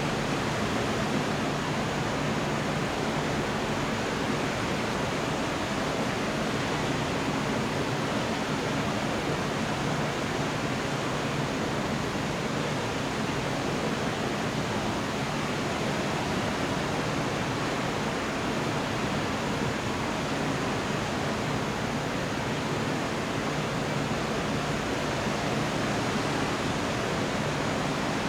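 Steady heavy rain during a thunderstorm, an even rushing hiss with no thunderclap in it.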